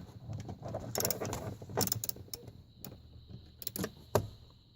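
Small ratchet with a 7 mm socket clicking irregularly as screws are run into the plastic steering column cover, mixed with knocks from handling the tool and cover. The screws are being tightened.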